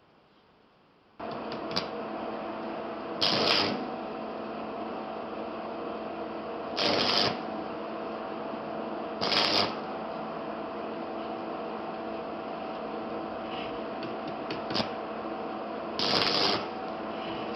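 A small electric power tool switches on about a second in and runs at a steady hum. Four times the work is pressed against it, giving a short scraping rasp each time, with a few sharp ticks between.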